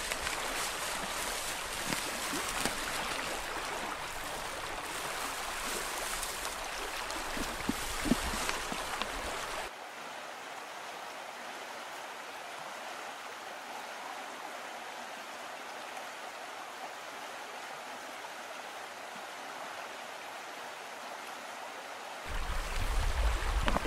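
A small stream running, a steady rush of water, with a few faint knocks. Over the first ten seconds there is also a low rumble, which cuts off abruptly; after that the water sounds quieter and more even.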